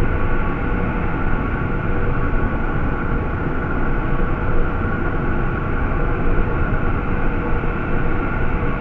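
Sci-fi alien drone sound effect: a steady, dense low rumble with a few held tones above it, no rise or fall.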